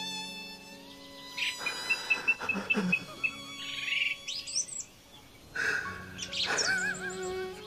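Birds chirping and trilling over soft, sustained background music with long held notes.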